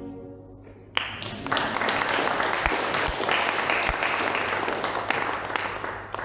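Audience applauding, starting suddenly about a second in and cutting off abruptly near the end.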